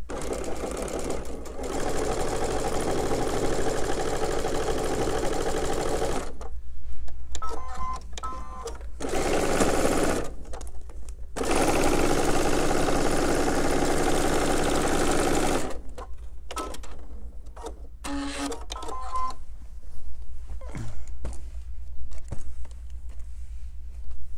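Electric sewing machine stitching: it runs steadily for about six seconds, stops, then runs again for about six seconds. Clicks and short beeps fall in the gaps.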